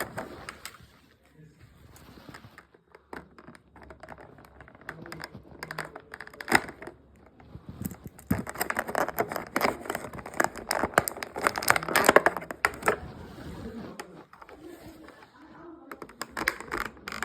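Toy packaging being handled and pulled apart: plastic crinkling and crackling with many small clicks. It gets denser and louder from about eight seconds in, for several seconds.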